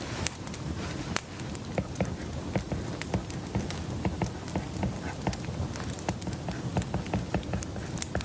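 Light, irregular tapping and clicking at a study desk, a few taps a second, over a low steady rumble.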